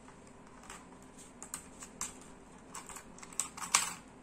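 Scattered small clicks and taps from hands working the metal retention lever and load plate of an LGA775 CPU socket on a motherboard, opening it to take a processor. The sharpest click comes near the end.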